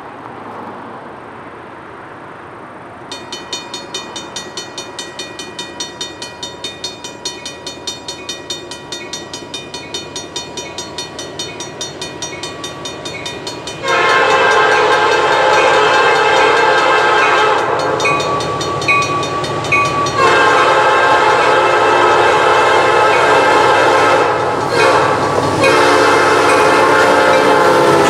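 Canadian National freight train led by a GE C40-8M cowl locomotive sounding its horn in loud long blasts as it approaches and passes close by, with short breaks between blasts. Before the horn, from about three seconds in, a rapid metallic ringing goes at about four strikes a second.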